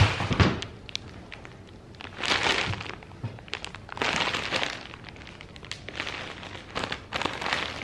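A plastic-wrapped roll of bamboo blind being handled and lifted, its plastic wrap rustling in several short spells, with a couple of light knocks right at the start.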